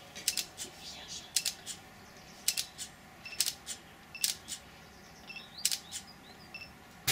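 A failed 2200 mAh lithium polymer cell burning itself out after overloading: sharp crackling pops from the burning cell, coming irregularly in small clusters of two or three about once a second as the flames die down.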